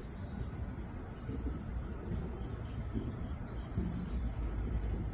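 Steady, high-pitched chorus of insects trilling without a break, over a low rumble.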